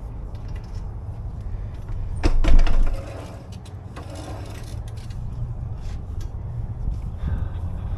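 Low rumble of wind on the microphone, broken a little over two seconds in by a short, loud clatter.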